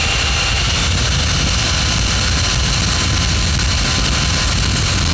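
Power drill running steadily under load, a 1/8-inch bit boring into the rivet of an American A52 padlock's steel body.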